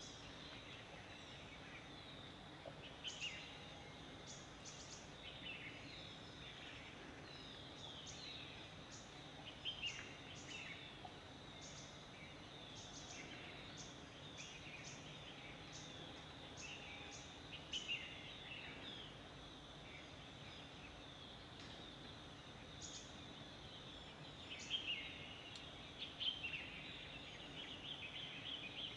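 Faint forest ambience: a steady low hiss with scattered short bird chirps and calls throughout, coming thickest near the end.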